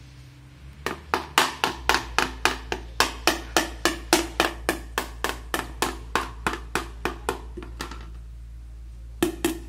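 Rapid, even tapping on a plastic food bowl, about three or four knocks a second, used to call cats to their food. The tapping starts about a second in, breaks off for about a second near the end, then starts again.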